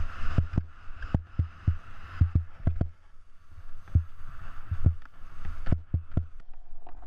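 Skis sliding over soft, chopped snow, heard from a GoPro on the skier: a steady scraping hiss with frequent irregular low thumps as the skis ride over ruts and bumps.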